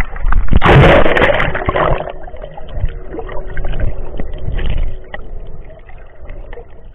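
Sea water splashing and sloshing against a waterproof action camera at the surface among swimmers, with a loud splash about a second in. Then muffled churning and gurgling as the camera goes under, fading toward the end.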